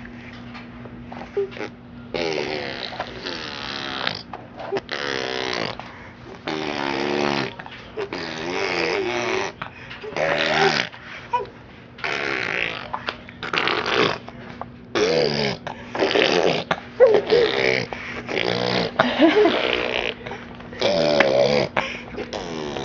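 A baby making strange noises with her voice: repeated bursts of a second or so that bend up and down in pitch, with short pauses between.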